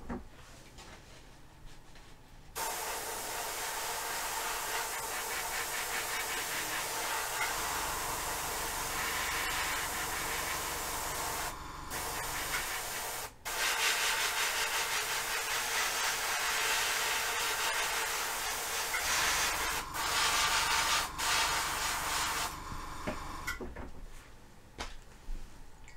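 Hairspray being sprayed onto a plastic scale model, a long steady hiss broken by a few short pauses, laying a layer for hairspray paint chipping. It starts a couple of seconds in and stops a few seconds before the end.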